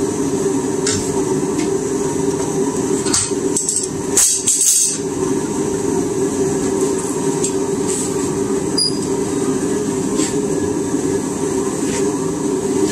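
Metal tools clinking against a hot railroad spike and a steel bench vise while the spike's handle is twisted, with a louder clatter about four seconds in and a short ringing ping near nine seconds. A steady mechanical drone runs underneath.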